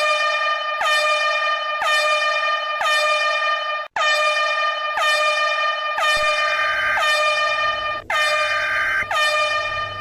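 Emergency-alert alarm tone: a harsh, horn-like electronic tone pulsing about once a second, each pulse dipping briefly in pitch as it starts. A low hum and a second steady tone join about six seconds in.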